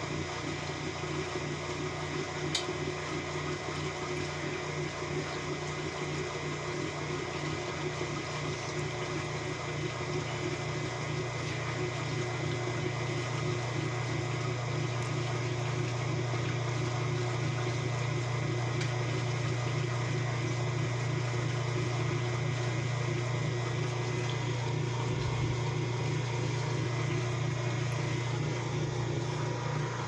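Top-loading washing machine running: a steady motor hum with water rushing through it, which swells slightly about a third of the way in.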